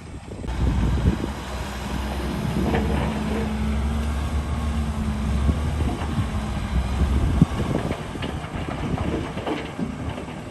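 Diesel engine of heavy earthmoving machinery running steadily under load, with scattered metal clanks and knocks. The steady engine note drops away about seven and a half seconds in.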